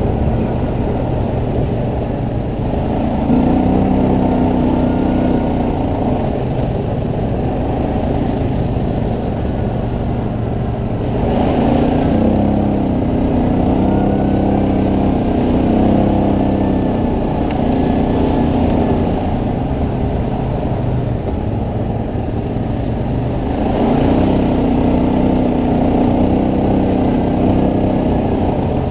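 ATV engine running while riding, a steady rumble whose note rises and wavers as the throttle opens three times: about three seconds in, around eleven seconds and near twenty-four seconds.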